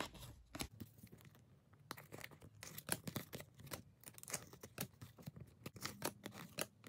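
1993-94 SkyBox Premium basketball trading cards being slid one behind another by hand, the glossy card stock making a faint, irregular run of soft scrapes and flicks; the old cards tend to stick together.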